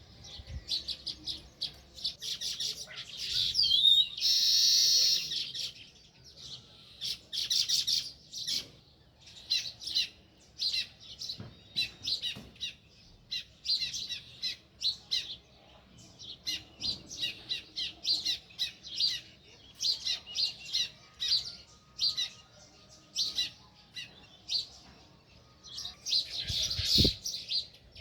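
House sparrows chirping: short, high chirps in quick irregular runs, with denser chattering bursts about four seconds in and near the end.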